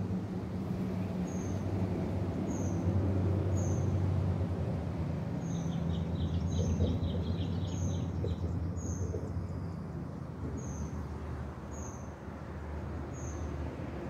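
A steady low hum like a distant motor running. Over it a bird gives a short high chirp about once a second, with a brief fast trill near the middle.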